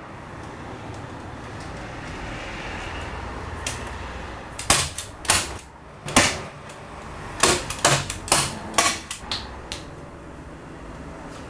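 A hand staple gun firing staples through a plastic membrane into a timber window frame: about ten sharp clacks, some in quick pairs, starting about four and a half seconds in. Before them, a utility knife cutting the membrane and the film rustling.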